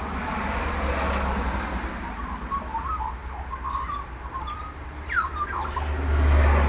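Wild birds calling: a run of short chirping notes, then a sharp downward-sliding whistle about five seconds in. Underneath is a steady low rumble and a rushing noise that grows loudest near the end.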